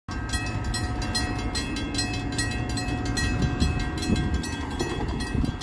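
Railroad grade crossing bell ringing in steady, even strokes, the warning that a train is approaching, over a low rumble.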